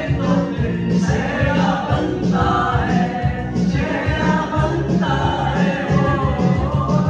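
Men singing together into a microphone over music with a steady beat.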